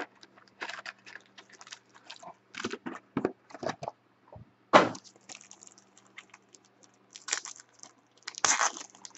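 Crinkling and rustling of cellophane-wrapped Panini Preferred trading card packs and their cardboard box being handled, in short scattered crackles. The loudest crackle comes about five seconds in, with another cluster near the end.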